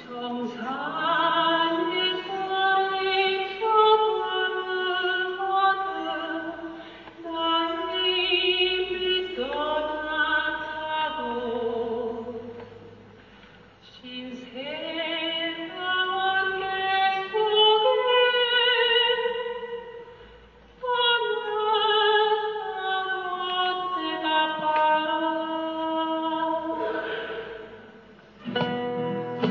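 A woman singing a slow Korean protest song in long held phrases with vibrato, with short pauses between phrases.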